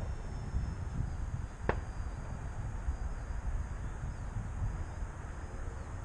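Gusty wind buffeting the microphone as a steady low rumble, over the faint high whine of an E-flite P-39 Airacobra RC plane's electric motor flying at a distance, its pitch drifting slowly. A single sharp click a little under two seconds in.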